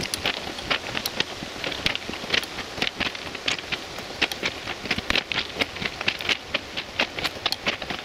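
Footsteps crunching on the crushed-stone ballast of a railway track, an uneven run of crunches about three a second.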